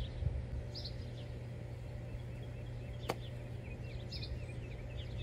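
A golf club strikes a foam golf ball off a turf mat: one short, sharp click about three seconds in. Birds chirp now and then over a steady low background noise.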